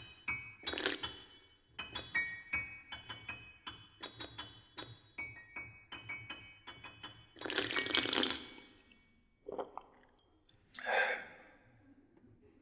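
Contemporary keyboard music: short, high bell-like notes and clicks in a quick, irregular rhythm, broken by two louder noisy bursts, one about eight seconds in and one about eleven seconds in.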